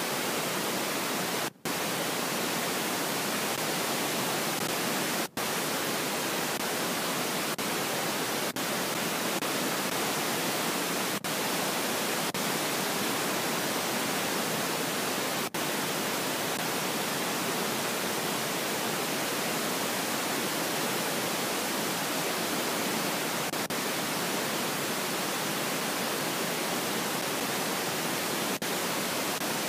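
Steady, even static hiss with no other sound in it, broken by a few split-second dropouts, the deepest about a second and a half in and about five seconds in.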